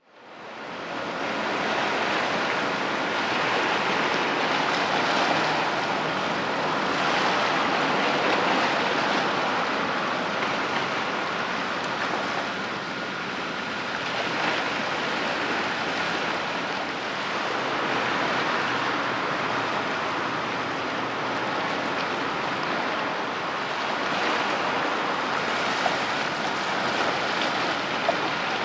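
Waves washing on the water's edge: a steady rushing hiss that slowly swells and eases, with wind mixed in.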